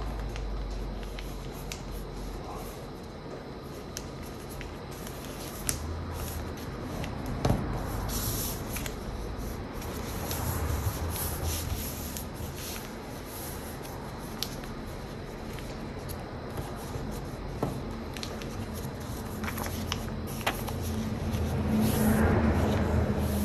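A sheet of paper being folded by hand: rustling and fingers rubbing along creases, with scattered small taps and crinkles. The rustling grows louder near the end as the paper is lifted off the table and handled.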